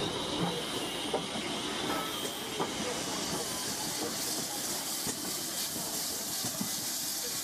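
GWR 2800-class steam locomotive moving slowly past with a steady hiss of steam, which grows louder about halfway through, over a few light clanks.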